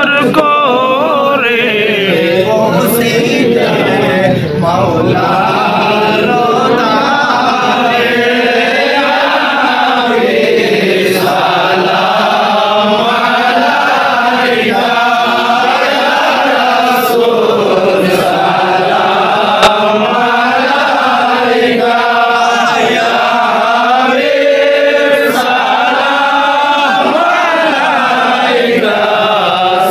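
A group of men chanting together in unison, a slow sung devotional chant whose melody rises and falls in long waves.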